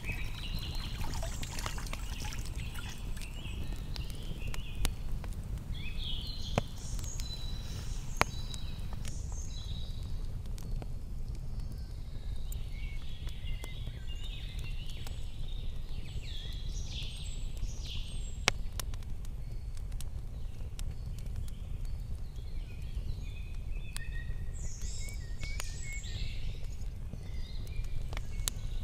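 Small birds singing and chirping on and off over a steady low rumble of outdoor ambience, with a few sharp clicks.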